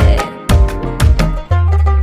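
Background music: a song's instrumental passage with plucked string notes, and a deep bass note coming in about one and a half seconds in.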